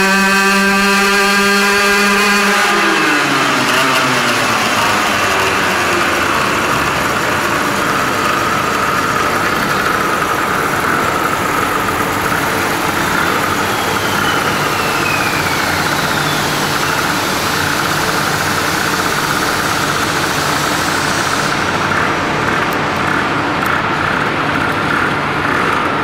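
Aprilia RS125 two-stroke single-cylinder engine held at high revs on a roller dynamometer, its rear wheel driving the roller; after about two and a half seconds the revs drop away, the pitch falling steadily, and the engine carries on at low revs for the rest of the time.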